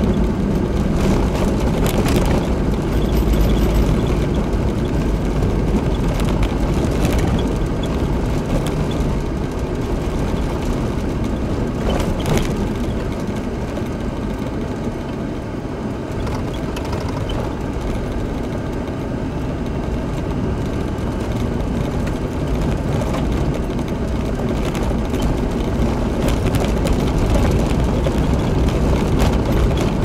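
Four-wheel-drive vehicle driving on a gravel road: steady engine and tyre-on-gravel noise, with a few sharp knocks, the clearest about twelve seconds in.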